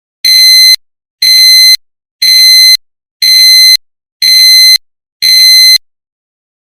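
Honda seatbelt reminder chime: six identical high beeps, one a second, each about half a second long. It warns that the seatbelt is unfastened while the vehicle is running.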